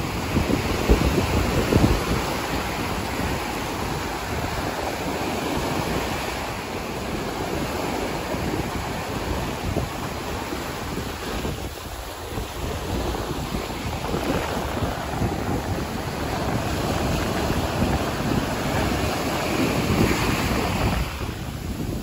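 Small waves washing up a sandy beach in shallow surf: a continuous rush of foam and water that swells about a second in and again near the end, with a brief lull midway.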